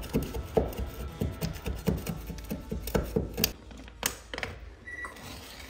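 A quick, irregular series of knocks and clicks, like hard objects being handled and set down, then a brief high tone about five seconds in.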